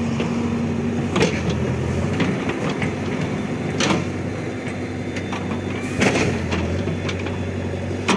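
Heavy diesel engine running steadily, with sharp knocks about a second, four seconds and six seconds in.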